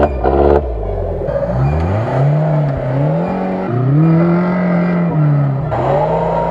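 Off-road 4x4 engine revving up and down several times under load as it climbs sandy ground.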